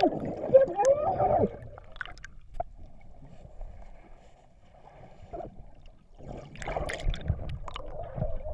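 Water sloshing and bubbling, heard muffled through a camera held under water, with scattered clicks and knocks. It dies down to a faint hiss about two seconds in and grows louder again about six seconds in.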